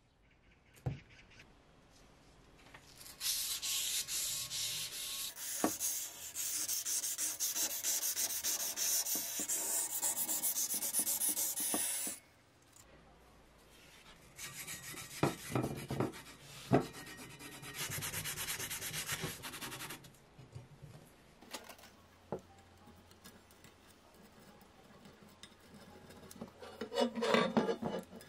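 Sandpaper rubbed by hand along a painted bicycle fork, scratchy back-and-forth strokes in two long stretches with a few knocks, taking the old paint down. A short burst of scraping comes near the end.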